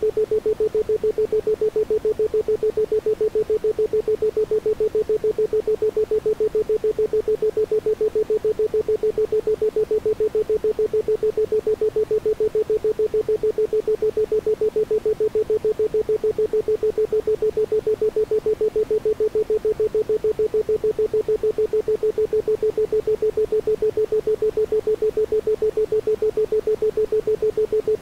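Isochronic tone: a single 432 Hz pure tone switched on and off in quick, even pulses, several a second, with nothing else behind it.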